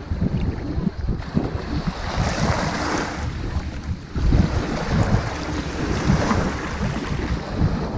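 Small ocean waves breaking and washing up a sandy beach, two swells rising and falling in turn, with wind buffeting the microphone as a low rumble.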